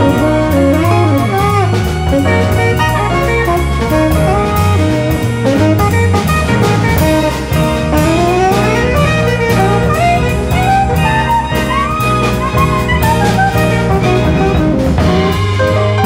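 Tenor saxophone soloing in a jazz ensemble, its melodic line rising and falling freely over walking bass, drums and bowed strings.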